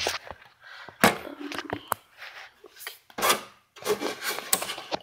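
Handling noise: irregular rubbing and scraping with a few sharp clicks, as the parts of a taken-apart TV are moved about.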